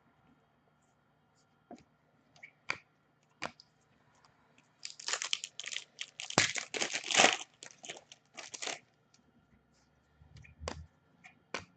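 A foil trading-card pack being torn open and its wrapper crinkled: a few seconds of dense tearing and crinkling in the middle, with scattered light clicks before and after.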